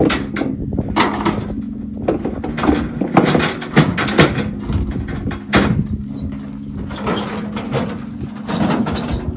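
Buckets knocking against a metal wheelbarrow as they are tipped out into it, then the wheelbarrow and its shovel clattering as it is picked up and pushed off, in a string of sharp knocks.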